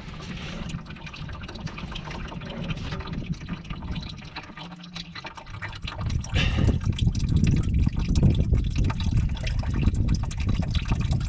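Engine oil trickling and dripping out of a loosened spin-on oil filter as it is unscrewed by a gloved hand, with small handling clicks. It gets louder from about six seconds in.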